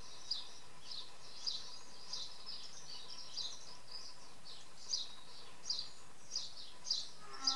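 A small garden bird calling over and over: short, high chirps that sweep downward, repeated about every half second to a second, over faint outdoor background noise.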